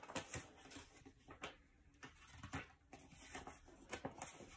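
Faint rustling and soft irregular taps of a picture book's pages being turned and the book being handled.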